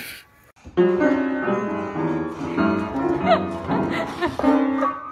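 Piano notes playing, starting just under a second in after a brief quiet gap.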